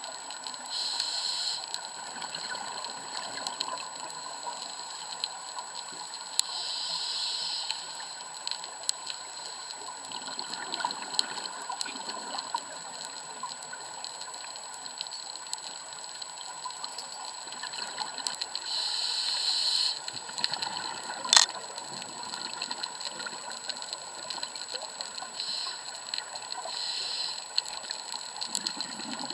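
Underwater sound through an action-camera housing: a scuba diver's regulator breathing, with several rushing bursts of exhaled bubbles a few seconds apart, over a steady crackle of faint clicks. One sharp, loud click comes a little past two thirds through.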